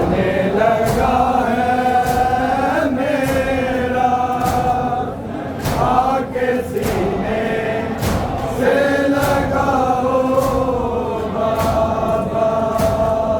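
Male voices chanting a noha, a Shia lament for Imam Musa Kazim, in long held lines sung together. A steady beat of sharp slaps keeps time underneath, roughly one every half to one second.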